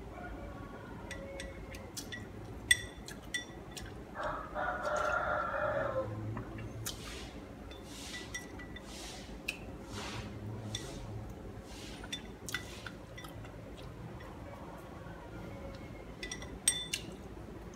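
Chopsticks clicking and clinking against a porcelain rice bowl, with mouth noises of eating between the clinks. About four seconds in, a rooster crows once for about two seconds, the loudest sound.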